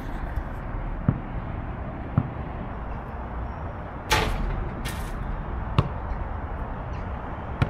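Basketball being shot around on an outdoor court: separate sharp knocks of the ball every second or two, one louder, ringing hit about four seconds in, over a steady low rumble.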